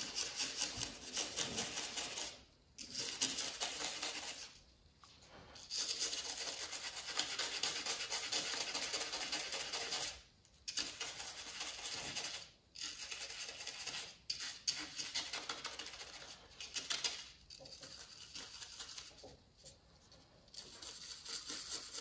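Toothbrush bristles scrubbing a wet, painted 1/35 scale model cab part in quick back-and-forth strokes, a rapid scratchy rasp broken by several short pauses. The scrubbing wears the top coat of paint away at the scratched wear points to show the metal colour underneath.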